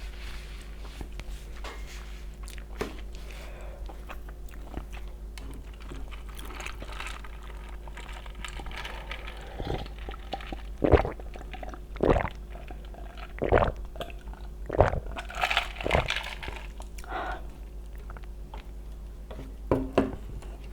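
Close-miked eating of Buldak spicy stir-fried ramen noodles: chewing and slurping, with a run of sharp, loud clicks and smacks about halfway through.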